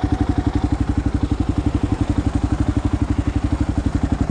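Kawasaki KLR650's single-cylinder four-stroke engine idling steadily, an even beat of about a dozen firing pulses a second.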